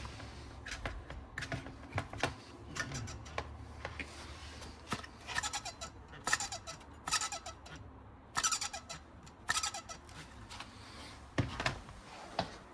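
KitchenAid gas range cooling fan running with a steady low hum and giving a series of short, irregular squeals that drop in pitch: the noisy, failing fan that needs replacing.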